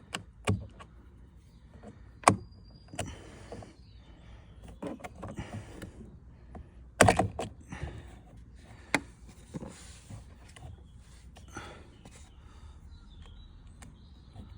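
Sharp plastic clicks and knocks with rustling in between, from hands and a small screwdriver working a clip-in puddle light lamp out of the underside of a car door. The loudest knock comes about seven seconds in.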